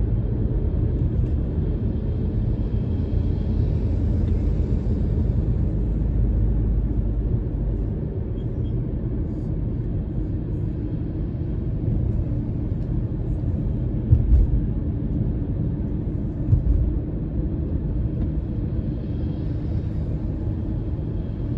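Steady low rumble of a car's road and engine noise heard from inside the cabin while driving, with two short thumps a couple of seconds apart past the middle.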